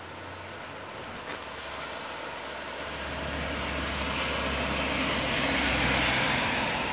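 A car driving past on a flooded road, its tyres hissing through standing water, swelling from about halfway and loudest near the end, over heavy rain falling.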